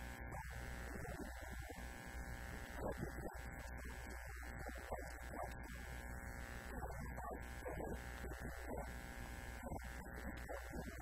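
Steady electrical hum and buzz, a mains-hum fault on the recording, running under a man's muffled, indistinct voice.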